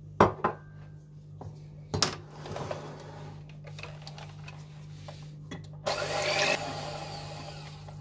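A couple of sharp knocks as utensils are set down on the counter, then an electric hand mixer beating eggs, milk and oil in a glass bowl. The mixer is loudest for about half a second just before the end and then runs on more quietly.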